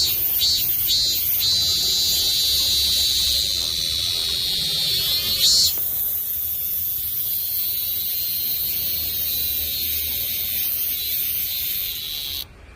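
Cicada singing: a loud, high buzzing drone that pulses a few times at first, then holds steady with a brief swell midway, and cuts off sharply just before the end.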